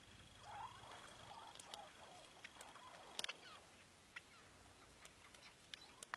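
Near silence with soft, faint clucking notes from chukar partridges in the first two seconds and scattered light clicks, the loudest a quick cluster about three seconds in. A faint steady high whine stops about two seconds in.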